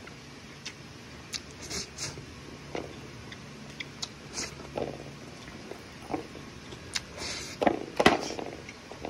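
A person eating rice by hand from a metal pot: scattered short clicks, scrapes of fingers against the pot, and chewing, with a louder cluster about eight seconds in.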